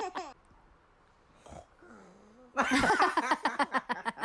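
A small child imitating snoring with a run of short, throaty vocal sounds that starts loudly about two and a half seconds in, after a near-quiet pause.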